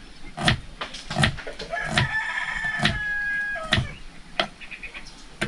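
A rooster crows once: a held call of about two seconds, starting about two seconds in. Under it are slow, regular sharp knocks of a knife slicing on a chopping board.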